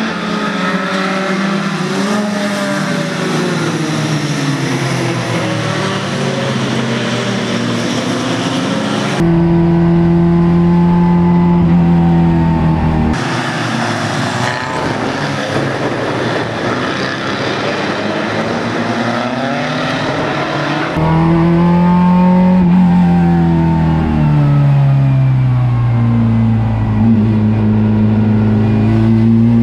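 Racing hatchback engines revving up and falling back through gear changes on a wet circuit. The sound changes abruptly a few times between cars heard from trackside and an engine heard from inside a race car's cabin, which is louder and deeper over the last third.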